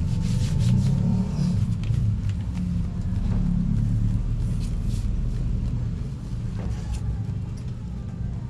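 Uneven low rumble of air from a woven bamboo hand fan buffeting the microphone as the charcoal under the grill is fanned, with a few light rustles and taps. The rumble eases a little after about six seconds.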